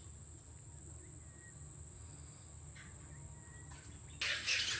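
Rainforest insects drone at one steady high pitch over a low hum, with a couple of faint short chirps. Near the end a sudden loud, scratchy noise breaks in.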